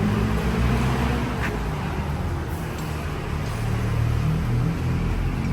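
A motor vehicle engine running with a steady low rumble, with one faint click about a second and a half in.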